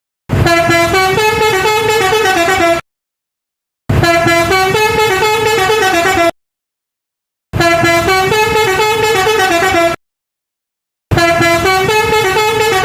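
Basuri telolet musical horn playing a short multi-note tune four times. Each phrase lasts about two and a half seconds and cuts off sharply, with about a second of silence between phrases.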